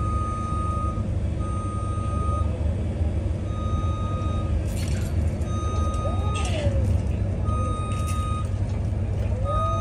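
A heavy vehicle's reversing alarm beeping, one tone about a second long roughly every two seconds, over a steady low engine rumble. A few short hisses come in during the second half.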